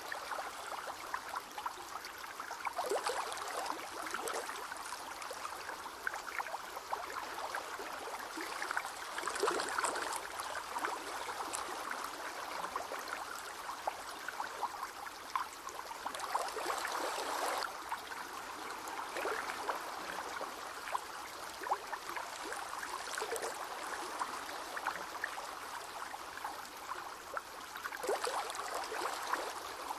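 A crab's mouthparts chewing a pomegranate aril: a steady wet crackle of fine clicks, with louder, denser spells every few seconds.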